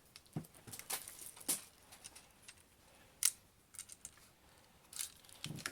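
Scattered light clicks and rustles of something being handled, with one sharper click about three seconds in and a couple of soft knocks near the end.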